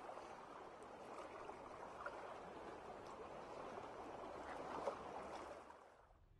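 Faint water sound effect, a soft rushing and bubbling, fading out near the end.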